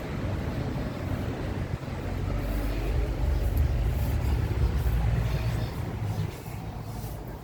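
Outdoor street noise with a motor vehicle passing: a low rumble that swells for a few seconds in the middle and then fades.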